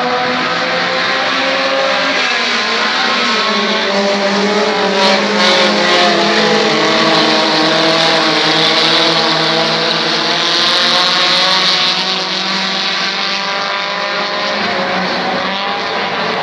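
A pack of compact dirt-track race cars running laps together, several engines overlapping and rising and falling in pitch as they pass and power through the turns.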